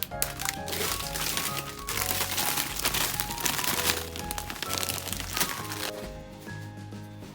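Background music over crinkling and cracking of plastic packaging being handled, which dies away about six seconds in.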